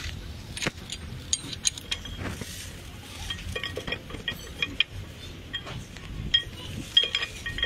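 Metal tools and engine parts clinking and clicking irregularly, some strikes leaving short ringing notes; the clinks come thicker in the second half.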